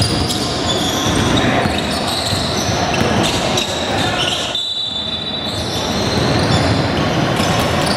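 A basketball bouncing on a court during a game, amid general game noise of players and spectators.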